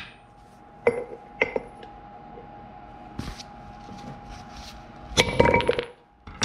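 Sharp metal clinks and knocks with a ringing tail, as steel tools strike the wheel hub while the worn-out rear wheel bearing is worked loose. There are two strikes about a second in, a faint ring lingering through the middle, and a quick cluster of strikes near the end.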